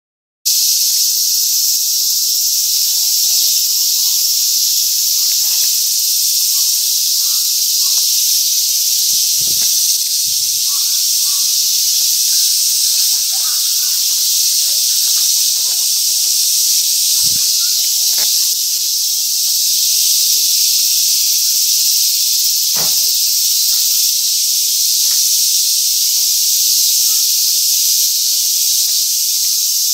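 Cicadas in a summer chorus: a loud, steady, high-pitched hissing drone that does not let up. A few faint low knocks sound over it.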